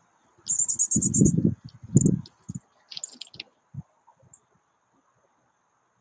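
Short, high bird chirps and quick trilled bursts, a few sliding downward about three seconds in, over a faint steady hum. Loud low thumps and scuffs about one and two seconds in come from birds moving on the wooden feeder platform close to the microphone.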